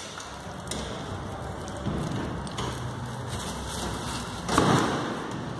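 Rustling and rubbing noise from a phone's microphone handled close against skin and a knitted top, with a louder rub about four and a half seconds in.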